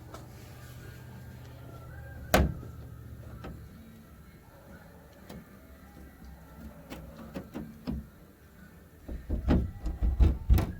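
Scattered knocks and clicks of hand tools and metal parts being handled and set down. One sharp knock comes about two seconds in, and a quick run of heavier knocks comes near the end.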